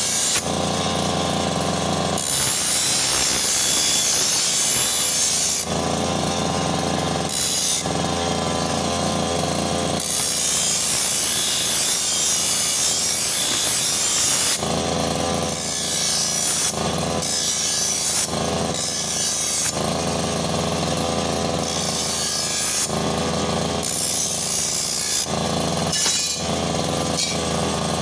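Brush cutter engine running and being throttled up and down. It swings every second or two between a lower, steadier engine note and a higher, hissier full-throttle run.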